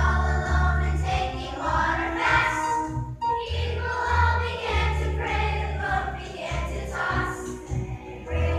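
A school choir singing with accompaniment, over a low bass line that pulses in a steady rhythm.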